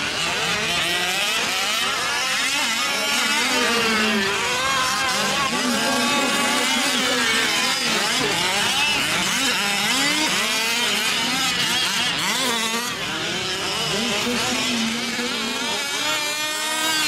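Several 1/5-scale RC trucks' small two-stroke petrol engines running at once, their pitches rising and falling as they rev up and ease off, overlapping one another.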